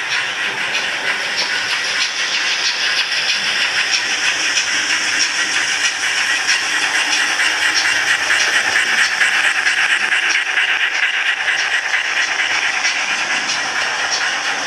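Model steam tank locomotive's sound decoder playing a hissing, rhythmic steam chuff through its small speaker as the engine runs past hauling its coaches, growing louder as it nears and then easing off.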